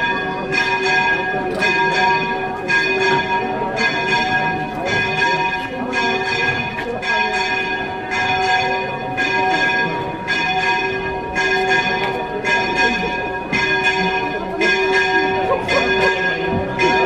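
Church bells ringing in a fast, even peal, about two strikes a second, their tones ringing on between strikes.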